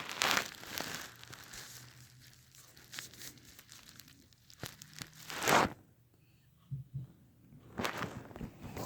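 A cat playing with a fidget spinner: scattered light knocks and rustling, with one louder rustle about five and a half seconds in, then a short lull before the knocks start again.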